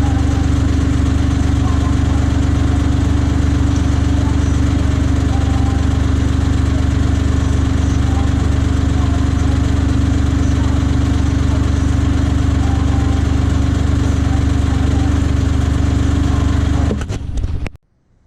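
An engine running steadily at a constant speed with a deep, even hum, cutting off abruptly near the end.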